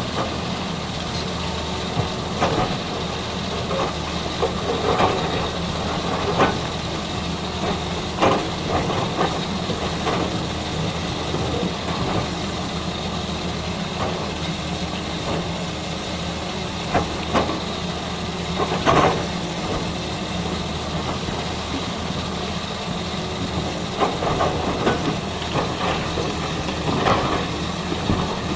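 Diesel excavator engine running steadily, with scattered sharp metallic knocks and clanks every few seconds.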